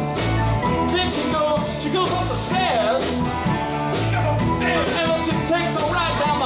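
Live rock band playing: drum kit, electric bass and electric guitars, with a steady beat and bending melodic lines over the top.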